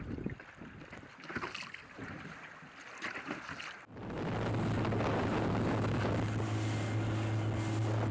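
Irregular, shifting noise for about four seconds, then suddenly the steady drone of a boat's engine running at speed, with wind on the microphone and rushing water spray.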